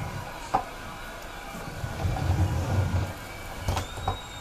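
A toy baby buggy's wheels rumble as it is pushed across the floor, strongest about two seconds in. A few sharp knocks come about half a second in and again near the end.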